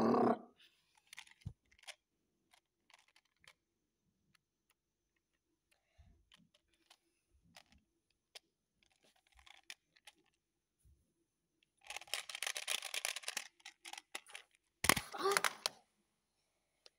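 Handling noise: scattered faint clicks and rustles, a longer stretch of scraping rustle about twelve seconds in, and a sharp knock near fifteen seconds.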